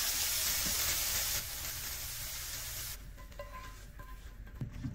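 Diced fresh shrimp sizzling in a hot frying pan as they are stirred. The sizzle stops suddenly about three seconds in, leaving a few faint taps.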